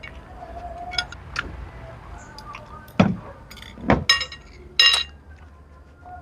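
Chopsticks clicking on a plate, then the plate set down on a table with two sharp knocks, followed by two short ringing clinks.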